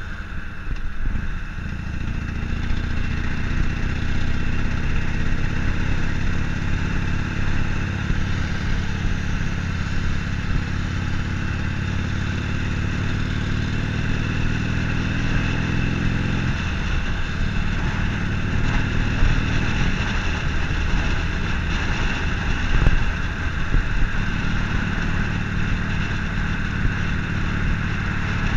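Harley-Davidson Sportster Forty-Eight's air-cooled 1200 cc V-twin running under way, heard from the rider's seat over a haze of wind and road noise. The steady engine note breaks up and changes about halfway through.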